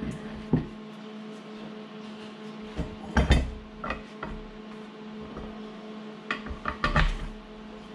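Clicks and knocks of parts being handled: a split nylon bearing block and its pin being fitted onto a steel pedal tube. There is one knock about half a second in, a cluster about three seconds in and more near the end, over a steady low hum.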